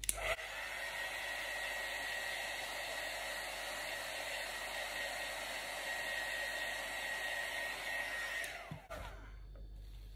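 Hand-held electric hot-air blower switched on and running steadily with a faint high whine, then switched off near the end and winding down.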